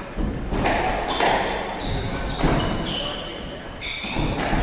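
A squash rally: the ball struck by rackets and hitting the walls several times, with shoes squeaking on the wooden court floor.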